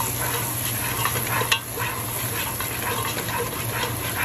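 Peas frying in butter, sizzling steadily in a pot while a spoon stirs and scrapes them around. There is one sharp tap of the spoon about a second and a half in.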